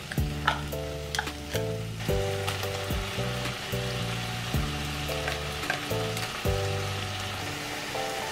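Bacon and kimchi sizzling in a frying pan, a fine hiss that grows stronger about two seconds in, with a few sharp ticks as the food drops into the pan. Background music plays throughout.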